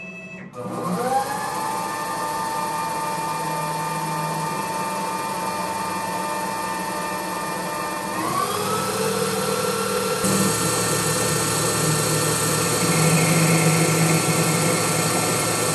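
Intelitek Prolight benchtop CNC lathe spindle starting up: a rising whine that settles to a steady pitch, then steps up to a higher steady whine about eight seconds in as the spindle speeds up, with steady machine running noise growing fuller about ten seconds in.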